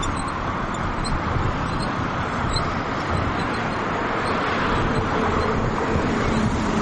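Steady road traffic noise, with cars passing close by.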